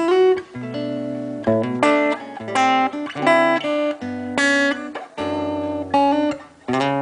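Acoustic guitar strumming chords in a short instrumental break, the chord changing about every second.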